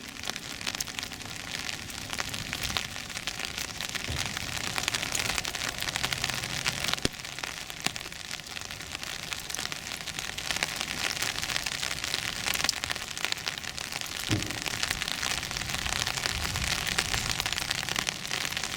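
Rain falling steadily on surfaces: an even hiss with many small drop ticks. The siren is silent.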